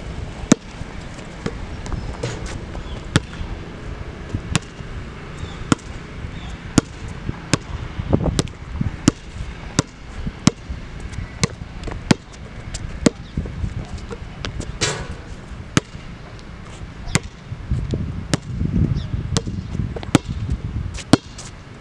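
Basketball being dribbled on a hard court: sharp, evenly spaced bounces about every three-quarters of a second, over a low background rumble.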